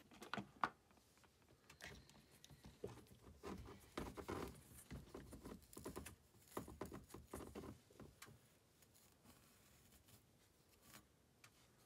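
Faint handling noises: a few light clicks, then soft scattered rustling as a plastic jar and a stocking-covered vacuum nozzle are handled, fading out after about eight seconds.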